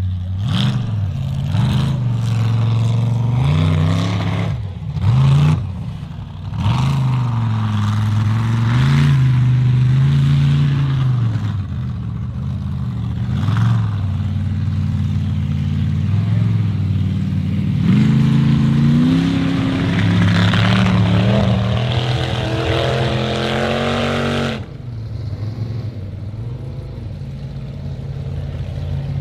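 Formula offroad competition buggy's racing engine revving hard, its pitch climbing and falling again and again as it powers up a steep dirt hill climb. About 25 seconds in the revs drop abruptly to a steady, lower engine note.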